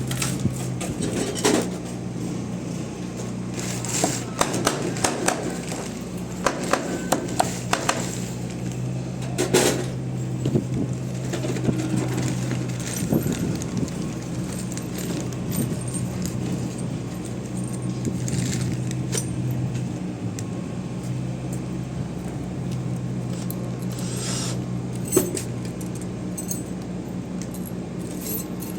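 Scattered metallic clinks and knocks, some in quick clusters, over a steady low hum.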